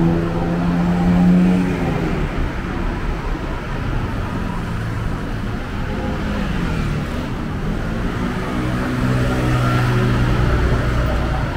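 Street traffic: motor-vehicle engines running close by over a steady traffic rumble. One steady engine note is heard for the first two seconds, and another near the end.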